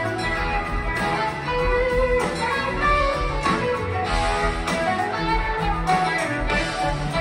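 Live rock band playing, electric guitar to the fore over drums, bass and keyboards.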